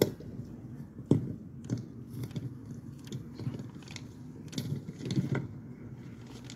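Handling noise on a handheld microphone: scattered bumps and knocks, sharpest about a second in and again around five seconds in, with paper rustling as a sheet is unfolded.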